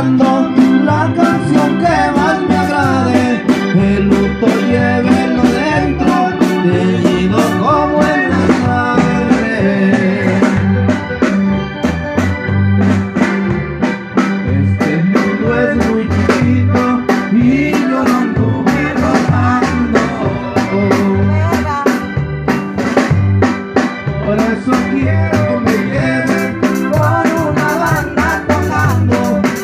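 Live band music: an electronic keyboard and a drum kit playing a song with a steady beat.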